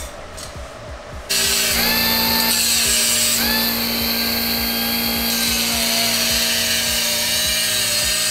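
A high-speed power tool cutting a hole in a stainless steel exhaust downpipe. It starts suddenly about a second in and runs as a whine whose pitch dips and wavers as the cut loads it.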